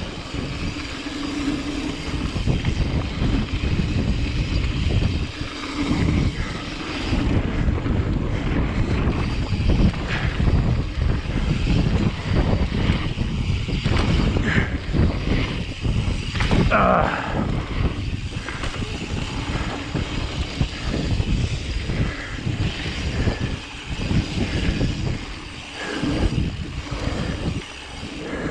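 Wind buffeting the microphone over mountain bike tyres rolling on dirt and the bike rattling through a jump line, with a brief higher-pitched sound about two-thirds of the way through.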